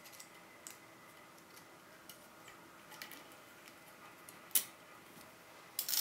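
Lock picks clicking and scraping against the pin tumblers of a Kaba Gege euro cylinder with security pins as it is picked. The clicks are faint and scattered, with a sharper click about four and a half seconds in and a short cluster of clicks near the end.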